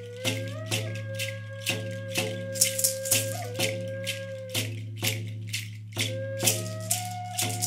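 Wooden flute playing a slow melody of long held notes over a steady beat of about two strikes a second from a beater-struck frame drum, with a hand rattle and a gourd maraca shaking along.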